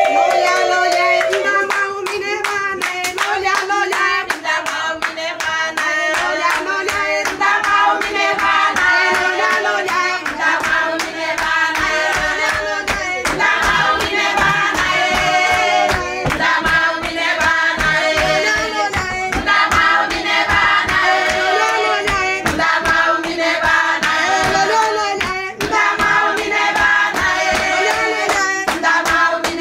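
Singing with steady rhythmic hand clapping throughout.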